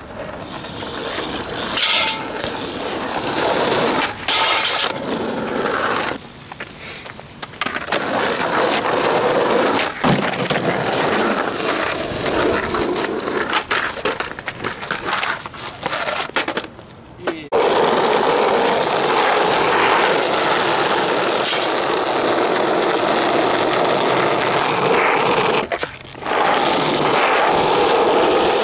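BMX bike on asphalt and a concrete curb: tyres rolling and metal scraping in a steady, loud noise. The sound changes abruptly several times where the clips are cut together.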